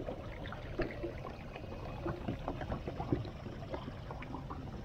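Small waves lapping and slapping against a boat hull, an irregular run of light splashes and knocks over a low steady rumble.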